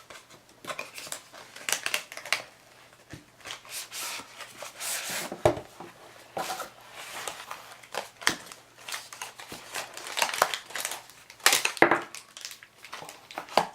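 Packaging crinkling and rustling in irregular bursts, with a few small knocks, as camera accessories are unpacked from a box.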